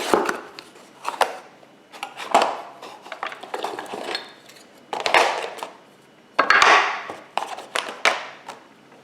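Pieces of a knife-sharpening kit being handled and set down on a hard surface: a string of irregular knocks and clatters, the loudest about five and six-and-a-half seconds in.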